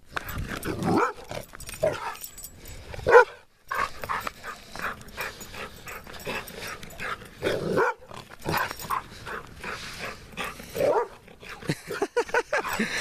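A dog barking over and over in short, separate barks as it runs about in play; the barking is play, not aggression. The loudest bark comes about three seconds in.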